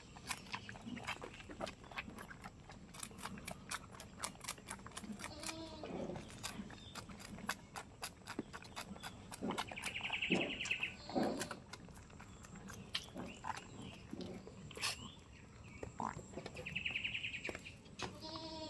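Goats bleating now and then, with many sharp clicks and knocks scattered throughout. There is a short high rattling call about ten seconds in and again near the end.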